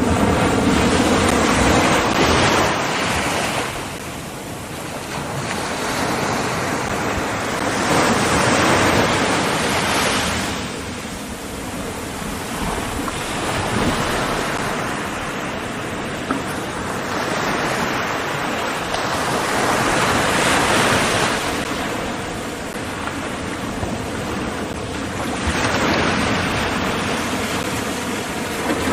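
Ocean surf: waves breaking and washing in, swelling and fading about every six seconds, with wind noise on the microphone.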